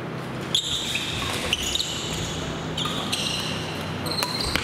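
Badminton rally: court shoes squeaking on the gym floor again and again, with rackets hitting the shuttlecock a few times, over a steady low hum.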